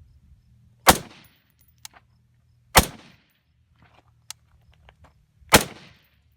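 Three single rifle shots, each with a short fading echo. They come about two and three seconds apart, in an unhurried rhythm of aimed fire, with faint ticks in between.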